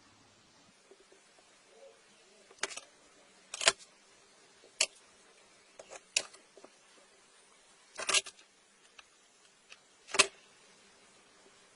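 A series of sharp, short clicks and taps, about six of them a second or two apart with a few fainter ticks between, as of small objects being handled and set down.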